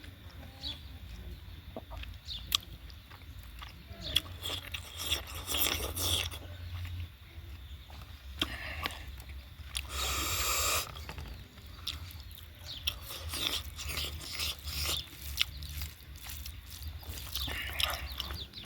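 Close-up eating sounds: chewing and mouth smacks on smoked pork, heard as many short wet clicks, with one longer breathy noise about ten seconds in. Chickens cluck now and then in the background.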